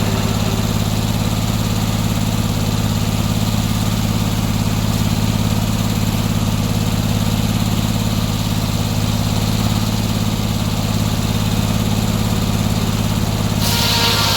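Gasoline engine of a circular sawmill running steadily at speed. Near the end a loud hiss with a steady whine rises over it.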